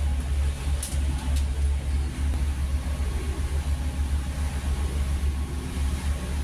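Passenger ferry's diesel engine running, a steady low drone under the hiss of wind and water on deck.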